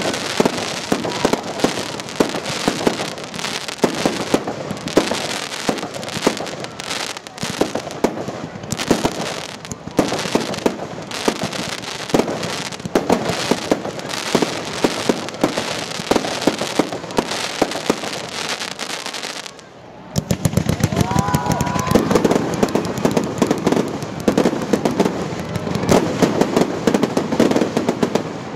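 Aerial fireworks bursting: dense, rapid crackling and bangs from many shells, with a brief lull about twenty seconds in before the crackling resumes heavier.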